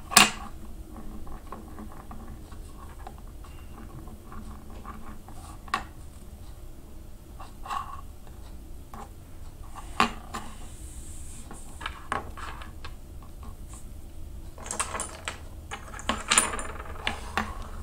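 Scattered sharp clicks and small clattering knocks, like objects being handled and set down, with a denser run of them near the end, heard over a video-call line with a low steady background hum.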